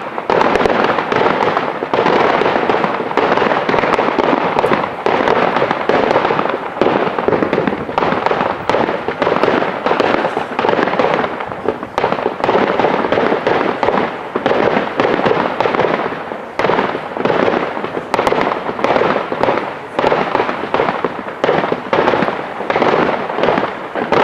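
Aerial fireworks display going off in quick succession: a dense, near-continuous run of sharp bangs and crackling with no pause.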